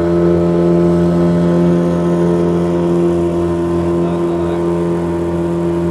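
Fishing boat's engine running steadily with the boat under way, a constant even drone that does not change pitch.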